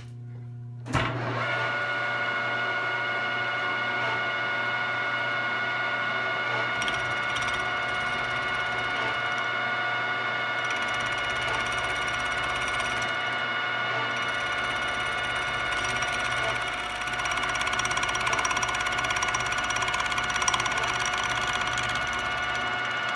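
Milling machine end mill side-cutting the rough hacksawed edge of an aluminum plate to square it up. A steady ringing whine over the spindle motor's hum, starting about a second in.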